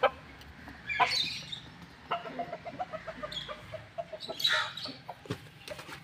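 Chickens clucking: a string of short, quiet clucks over several seconds, with a few brief sharp clicks among them.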